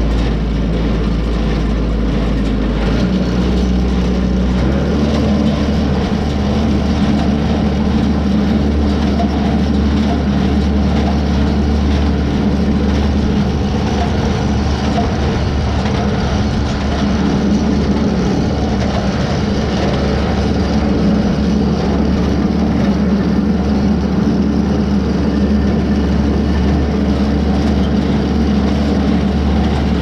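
A tractor engine running steadily under load, pulling a New Holland 273 small square baler that is picking up and baling a hay windrow.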